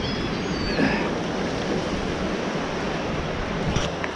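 Steady rush of water pouring over a spillway.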